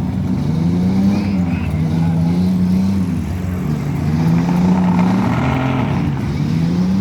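Demolition derby car engine running hard, its pitch rising and falling several times as it revs up and eases off.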